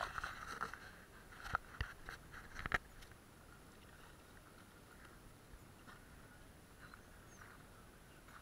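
Sea water sloshing and splashing against a camera held at the surface, with a few sharp knocks in the first three seconds, then only faint lapping.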